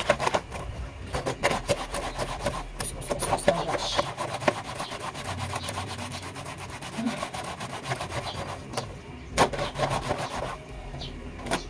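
Wet cloth being scrubbed hard against a sink counter by hand in quick, repeated rubbing strokes: laundry being hand-washed. One sharper, louder knock comes about nine and a half seconds in.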